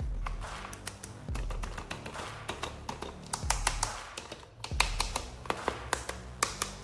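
Irregular sharp clicks and taps of plastic toy packaging and action figures being handled and opened, several a second, with rustling between them. Background music with a steady bass line runs underneath.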